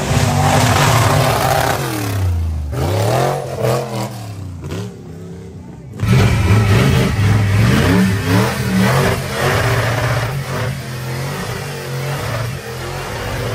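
Off-road 4x4's engine revving, its pitch falling and rising several times. It gets suddenly louder about six seconds in.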